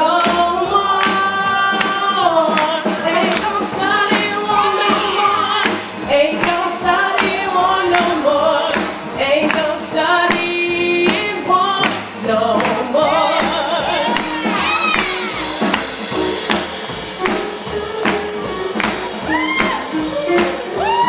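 Live band playing a gospel song with singing over a steady beat.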